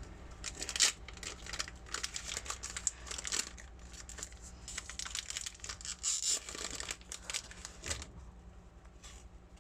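Foil trading-card booster pack wrapper crinkling and tearing as it is opened by hand, in short irregular crackles that thin out near the end.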